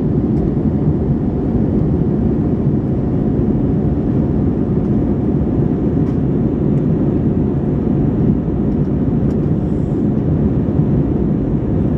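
Jet airliner cabin noise in flight, heard from a window seat over the wing: a steady, deep rush of engine and airflow noise, with a faint steady hum above it.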